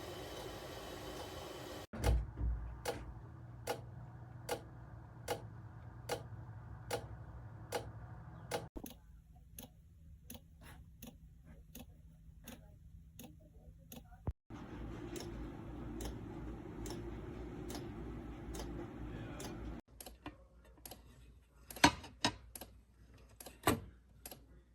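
Regular mechanical ticking, about one tick every 0.8 seconds, over a steady low hum, broken by several abrupt cuts; a few louder, irregular clicks near the end.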